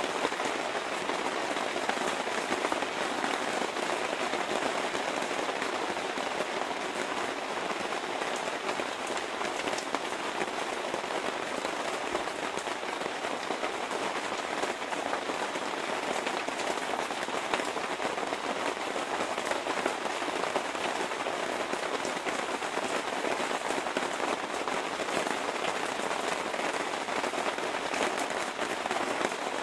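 Steady rain falling on lake water and a wooden deck: an even hiss dotted with a dense patter of individual drops.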